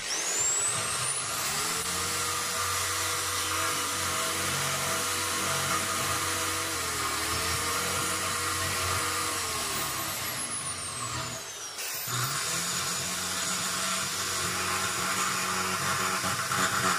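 Electric hand drill running steadily with a 6 mm ordinary steel bit, boring through stainless steel to enlarge a hole. The motor whine rises as the drill spins up at the start, and about twelve seconds in the drill stops briefly and starts again.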